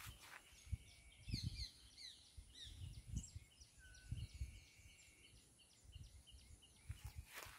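Small birds chirping, a run of quick, repeated short calls, over soft low thuds of footsteps in grass.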